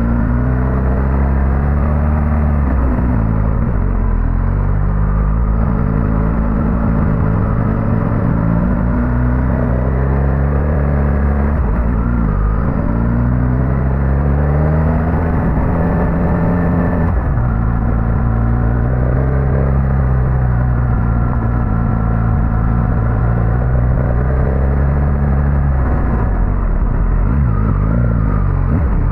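Suzuki GSX-S1000GT's inline-four engine running under way, its pitch rising and falling again and again as the throttle opens and closes.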